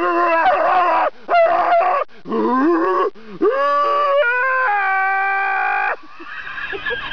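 A person's voice imitating moose calls: five drawn-out calls, some gliding up in pitch, the last held steady for about a second and a half.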